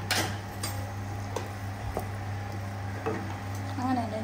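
Wooden spatula stirring and scraping drumstick leaves and egg in an aluminium kadai, with a few sharp knocks against the pan and a light sizzle, over a steady low hum.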